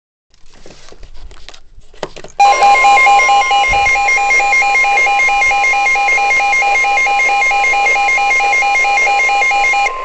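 A weather alert radio sounding a severe thunderstorm warning alarm. After a couple of seconds of faint handling clicks, a loud electronic alarm starts: rapid pulsing beeps over a steady high tone, the broadcast warning tone that signals an emergency alert. The beeping stops just before the end while the steady tone holds.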